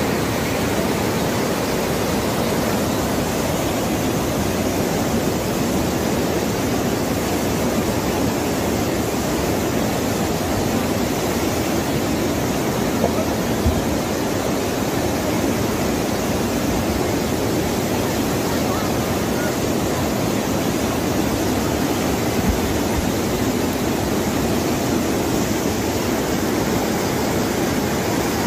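Steady, unbroken roar of rushing water, like a flooded river in spate, holding one level throughout, with a couple of brief knocks.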